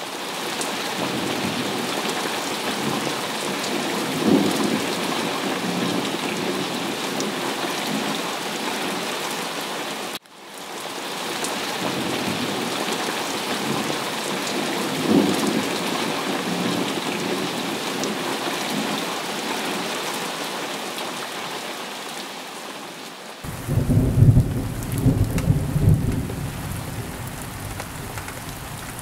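Heavy rain falling steadily, with rumbles of thunder. The sound cuts out for an instant about ten seconds in and fades back up. A deeper, louder thunder rumble starts about six seconds before the end.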